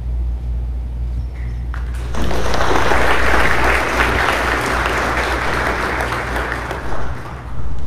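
Small audience applauding: clapping starts abruptly about two seconds in, holds for about five seconds, then fades out near the end, over a steady low hum.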